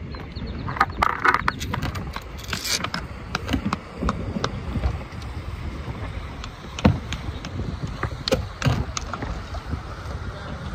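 Wind on the microphone and water lapping against a kayak, with scattered short clicks and knocks.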